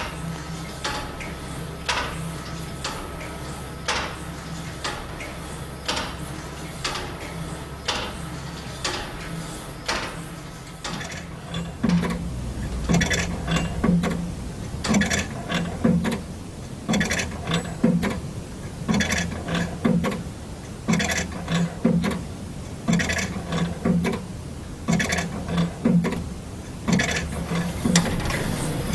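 Large clockwork grasshopper escapement of the Corpus Clock ticking about once a second, its pallets clicking against the escape wheel. About twelve seconds in the beats grow louder and fuller, each with a low knock and some clatter. A steady low hum stops about nine seconds in.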